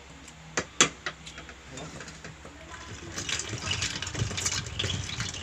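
A few sharp clicks, then from about three seconds in liquid being poured, a dense splashing fill that grows louder.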